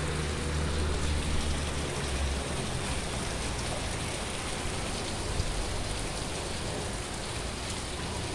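Steady rain falling. A low steady hum fades out about two seconds in.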